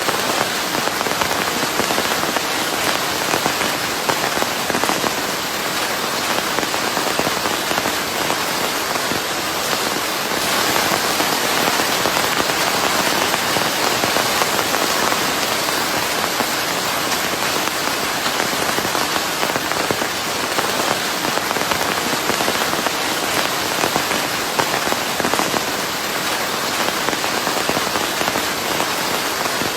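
Steady rain falling on a surface: a dense, even hiss with many small drop ticks through it, swelling slightly louder for a stretch in the middle.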